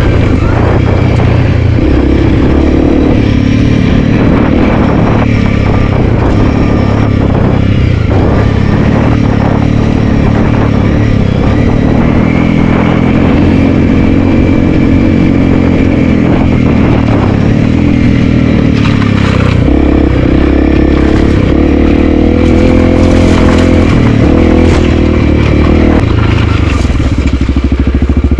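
Honda CRF300L's single-cylinder four-stroke engine running under a rider's throttle, its pitch rising and falling as the revs and gears change. Clatter and scrapes from the rough, overgrown trail run through it.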